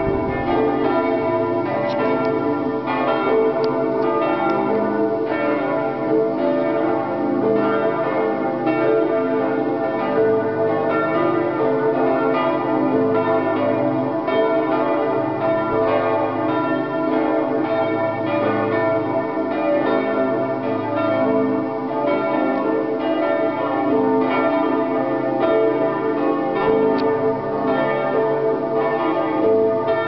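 Full peal of several church bells ringing together, their strikes overlapping without pause.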